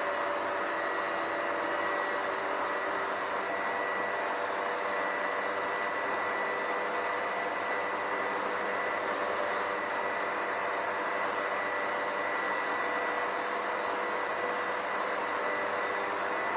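Steady road noise of a vehicle driving at constant speed through a long road tunnel: an even hiss with a faint steady high whine.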